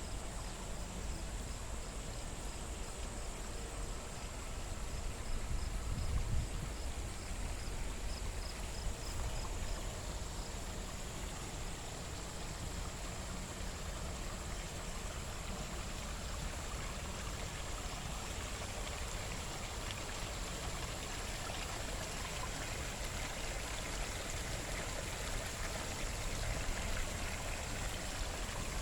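Water running steadily in a garden stream or small waterfall, an even rushing. A faint high chirp repeats a few times a second through the first ten seconds.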